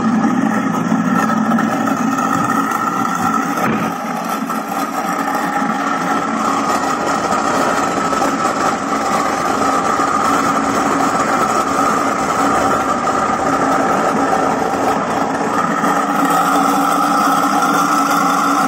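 InSinkErator food waste disposer running steadily as it grinds food scraps and water into a slurry.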